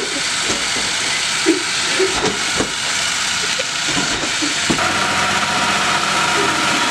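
Robot intake's electric motors spinning rows of green compliant wheels continuously, a steady whirring hiss, with a few soft knocks. About two-thirds of the way through, a steady whine joins in.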